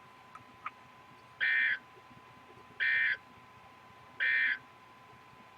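Emergency Alert System End-of-Message signal: three short, identical bursts of warbling SAME digital data tones about 1.4 seconds apart, marking the end of the alert. A faint steady tone hums underneath.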